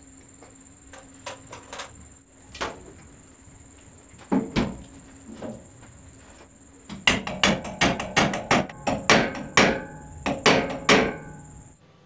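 Knocks on the metal housing of an electric fan motor as its end cover is tapped down into place. There are a few scattered knocks at first, then a quick run of about fifteen, roughly three a second, between about seven and eleven seconds in.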